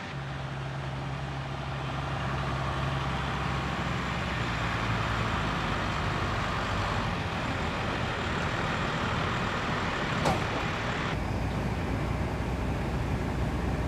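A heavy truck's diesel engine runs steadily as it hauls a loaded tomato trailer, with a short click about ten seconds in. About eleven seconds in, the sound turns duller and lower.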